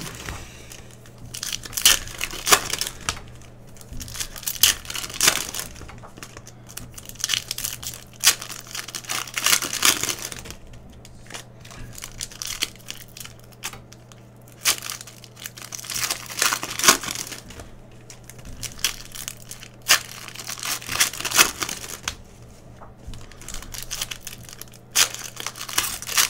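Foil trading-card pack wrappers from Panini Prizm retail packs crinkling and tearing as packs are ripped open by hand, in repeated bursts every second or two. A faint steady low hum runs underneath.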